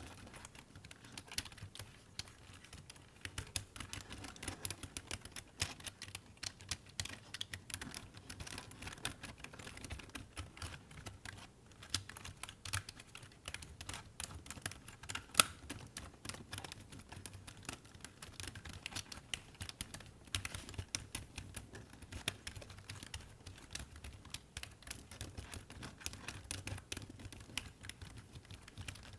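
Computer keyboard typed on close up in quick, irregular runs of key clicks, with one sharper, louder click about halfway through.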